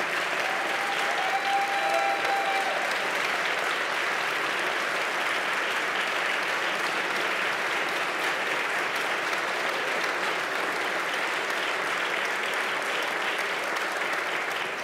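A large audience applauding steadily, a dense, even clatter of many hands clapping at once.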